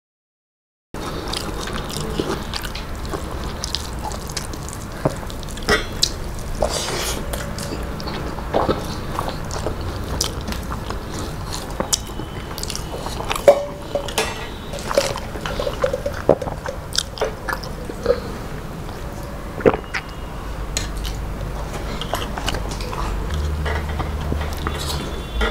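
Close-up chewing and mouth sounds of people eating rice and mashed vegetable bharta by hand, with many small wet clicks and smacks. The sound drops out for a moment at the very start.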